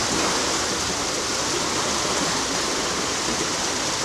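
Water rushing and churning into a canal lock chamber as it fills: a steady rush of turbulent water around the boat.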